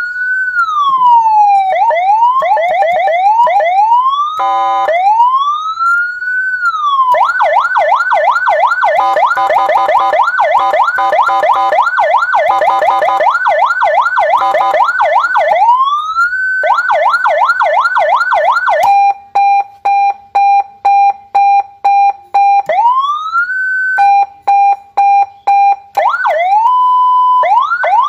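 Senken CJB100 100-watt electronic siren switched through several of its tones: a slow rising-and-falling wail, quicker yelping sweeps, a rapid warble, and then a steady tone pulsing on and off about three times a second near the end.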